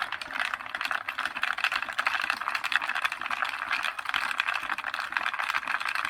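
Vevor rotary tumbler running, a dense continuous rattle of metal key blanks and abrasive media churning inside the turning barrel. It starts abruptly.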